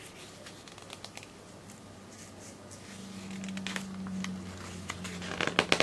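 Paper rustling and crackling as catalog pages are handled and turned in a binder, with a burst of louder crackles near the end. A low steady hum comes in about three seconds in.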